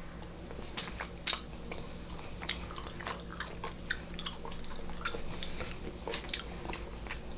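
Biting into a small round fruit, two sharp crisp snaps about a second in, then chewing with many small irregular clicks.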